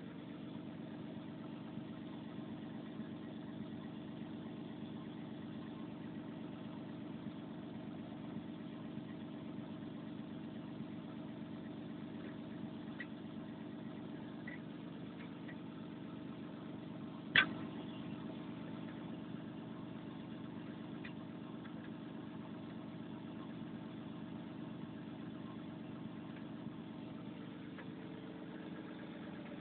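Volvo 360 excavator's diesel engine idling steadily. A single sharp click or tap cuts through about halfway.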